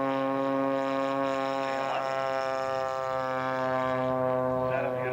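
Radio-controlled scale model aircraft engine running at a steady speed, one even buzzing drone that holds its pitch throughout.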